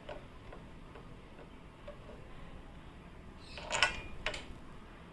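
A few sharp metallic clicks of a tool and bolt as the front brake caliper's mounting bolt is fitted and tightened. The clicks come about four seconds in, two of them the loudest.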